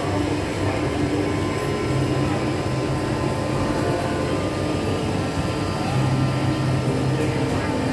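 Steady hum and rumble of an indoor mall concourse, with no clear single event standing out.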